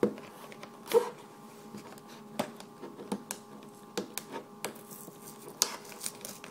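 Clear plastic blister of a carded action figure being prised off its cardboard backing by hand: a series of sharp, irregular crackles and clicks, roughly one a second, as the plastic flexes and pulls loose.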